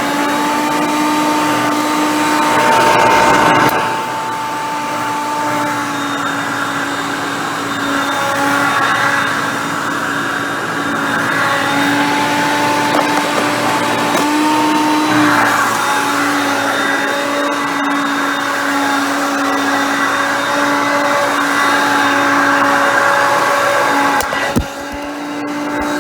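Hoover Concept Two upright vacuum's 5.6-amp motor running steadily while vacuuming, its whine shifting slightly in pitch as the load changes. There is a short sharp knock about 25 seconds in.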